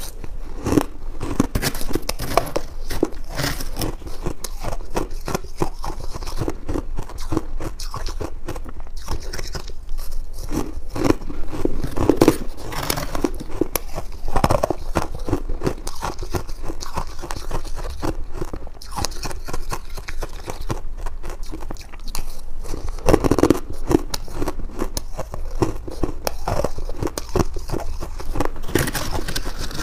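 Freezer frost sprinkled with buckwheat being bitten and chewed close to the microphone: dense, irregular crunching and crackling throughout, in louder clusters with each mouthful.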